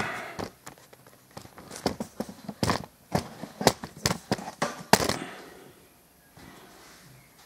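An irregular run of sharp clicks and knocks from things being handled, for about five seconds, then it goes much quieter.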